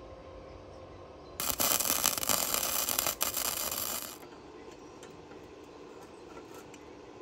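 MIG welding arc striking a tack weld on steel plate: a loud, continuous crackle that starts about a second and a half in and stops after about three seconds.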